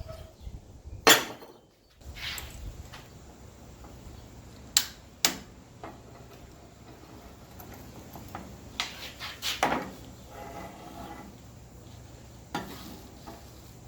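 Scattered sharp knocks and clinks of metal being handled, about five louder strikes spread apart, over a faint low steady hum.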